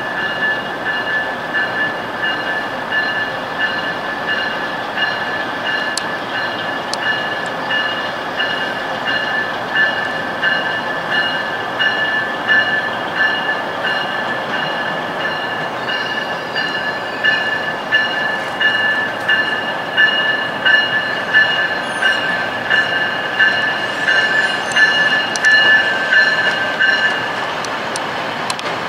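Union Pearson Express diesel multiple unit pulling out through the switches, its wheels squealing in steady high tones over the rumble of the train, with rail clicks that quicken and grow louder about halfway through. The squeal fades near the end as the train moves off.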